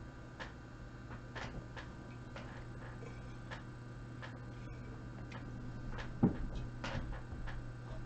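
Irregular light clicks and taps, with one louder knock about six seconds in, over a steady low hum.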